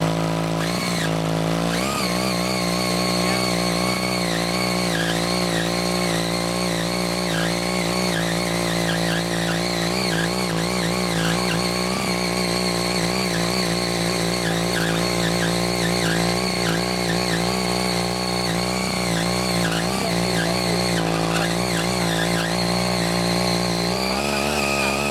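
Small engine of a CY80 walk-behind rotary cultivator running under load as its tines dig into hard red laterite soil. Its note wavers slightly as the load changes, and shifts just before the end.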